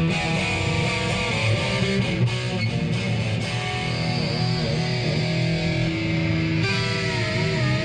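1987 Peavey Patriot electric guitar played amplified: picked riffs and lead lines, with bent, wavering held notes about five seconds in and again near the end.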